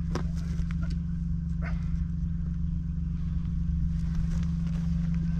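A steady low hum, with a few light knocks about a second apart near the start as a wooden hut on a wheeled chassis is pushed and turned by hand.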